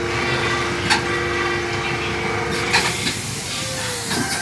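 Kiddie airplane ride running with a steady two-note hum that cuts off about three seconds in. Two sharp clicks are heard along the way, and a faint tone rises and falls near the end.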